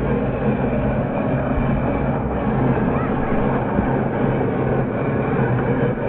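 Steady engine-like running rumble as a 1:12 scale RC 4x4 crawler drives slowly over loose gravel.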